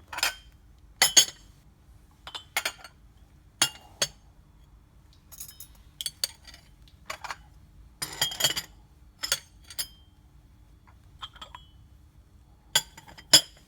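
Teacups, saucers and teaspoons clinking as they are set down one after another, a dozen or so short sharp china-and-metal clinks at irregular intervals.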